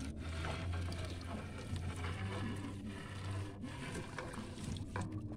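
Water splashing and dripping as a wet triple net (trammel net) is hauled hand over hand into a small boat, with a few faint knocks, under a steady low rumble.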